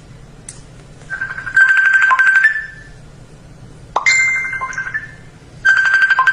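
A telephone ringing with a fast trilling electronic ring, in two bursts, with a short chime-like tone between them about four seconds in.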